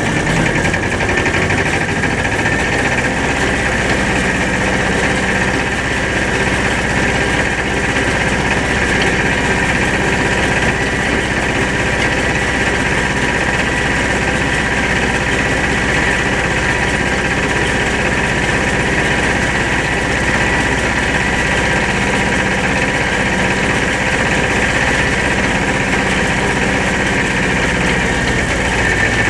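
Small vintage tractor's diesel engine running steadily under load while towing a loader wagon, with a steady high whine over the engine note.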